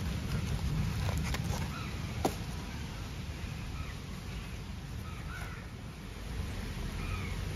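A steady low rumble, with a few short bird chirps over it. Cardboard and paper rustle and crinkle as a paper-wrapped potted cactus is pulled out of its box, with a sharp click about two seconds in.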